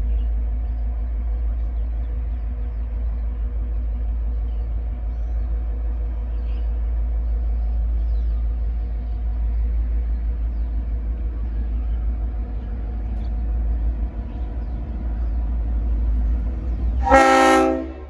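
V/Line N class diesel-electric locomotive approaching with a steady low engine drone, then one short blast of its Leslie RS5T five-chime air horn near the end, the loudest sound, lasting under a second.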